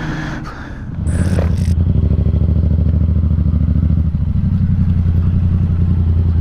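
Motorcycle engine idling steadily with a fast, even pulse, close to the microphone. It comes in about a second in, just after a brief hiss.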